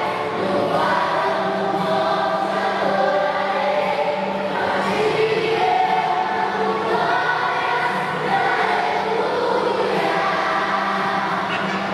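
A choir singing: many voices holding long notes that change every second or two over a steady low note.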